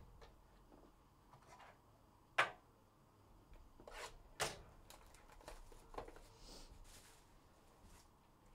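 A sealed hobby box of trading cards being unwrapped and opened by hand: scattered crinkles and clicks of wrapper and cardboard, with one sharper snap a little over two seconds in.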